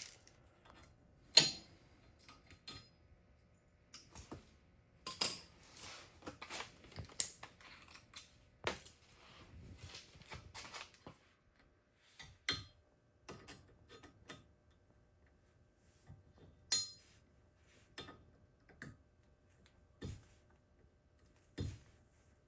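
Metal hand tools and small parts clinking and knocking as they are handled and set down: scattered sharp clinks with short quiet gaps, the loudest about a second and a half in and a busier stretch of clatter in the middle.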